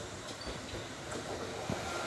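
Kintetsu 2000 series electric train pulling into the station, its running noise slowly growing louder as it nears. The wheels knock over rail joints a few times, about every half second.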